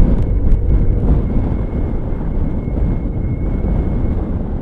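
Wind buffeting the microphone of a camera on a moving Suzuki Burgman scooter: a steady low rumble of wind and road noise, with a faint steady high tone above it.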